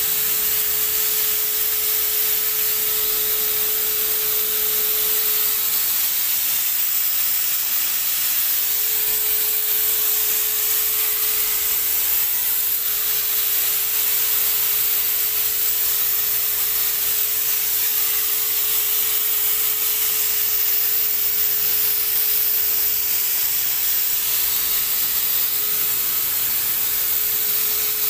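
Wagner portable electric HVLP paint sprayer running and spraying a fine mist: a steady rush of air with a steady whine from its motor.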